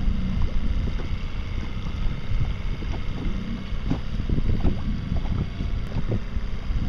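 Wind buffeting the microphone over choppy sea, with water splashing and lapping around a small boat.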